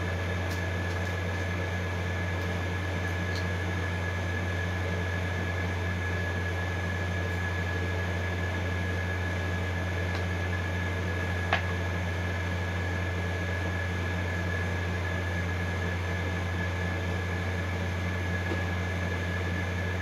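Steady low machine hum with a constant high whine over it, from a running appliance in the room. There is one small sharp click about halfway through.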